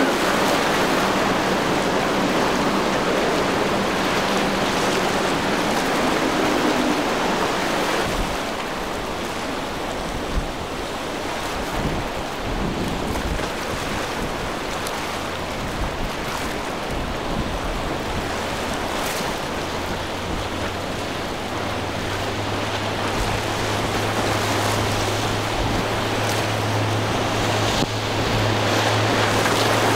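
Motorboat engines and the rush of water and wake in choppy inlet water. An engine hum fades after about seven seconds, leaving the wash of waves and wind. From about two-thirds of the way in, the low, steady drone of a powerboat's engines builds and is loudest near the end.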